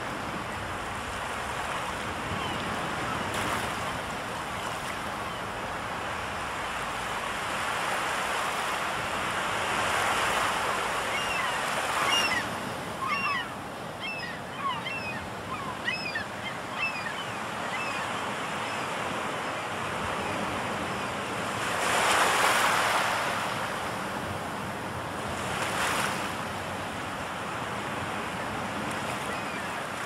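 Sea surf washing steadily on the shore, swelling as waves break about a third of the way in and twice more later. Seagulls give a run of short calls around the middle, with a few more near the end.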